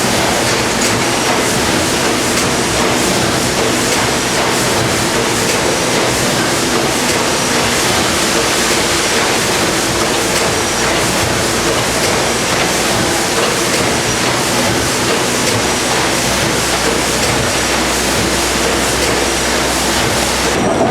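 Worthington-built 1917 Snow 600 hp twin-tandem, double-acting natural-gas engine running, a loud, steady mechanical din.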